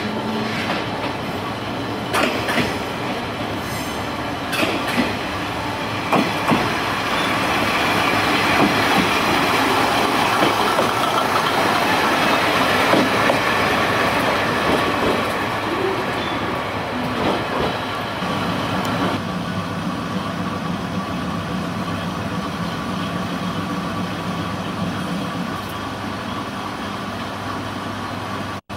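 Japanese Kiha 20-series diesel railcar on station tracks: its wheels clack sharply over rail joints and points a few times, followed by a louder stretch of running noise. In the latter part its DMH17 diesel engine drones steadily at idle.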